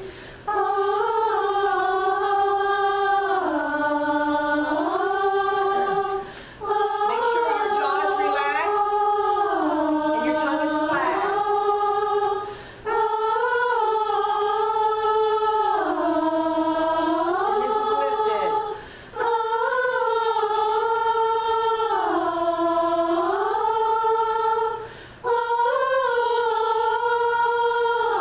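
A chorus singing a warm-up vocalise in unison, held notes joined by slides: each phrase drops to a lower note and glides back up. There are five phrases of about six seconds, each with a quick breath between.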